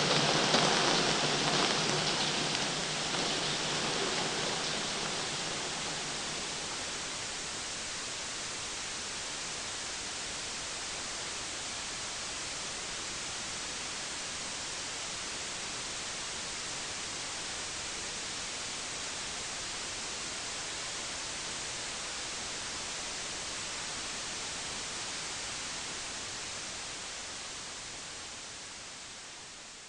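Television static hiss: a steady, even hiss, louder and fuller for the first several seconds, then level, fading out over the last few seconds.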